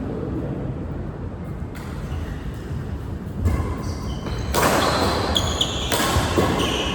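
Badminton rally: sharp racket hits on the shuttlecock with players' footwork on the court, busier and louder in the second half.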